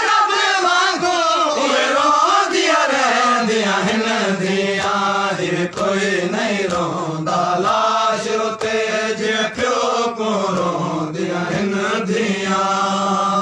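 Group of men chanting a noha, a Shia mourning lament, in unison behind a lead reciter on a microphone, with faint hand strikes on chests (matam) keeping the beat.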